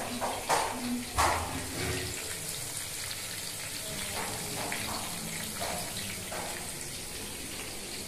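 Oil sizzling steadily as chicken pieces fry in a pan, with two sharp clinks about half a second and a second in.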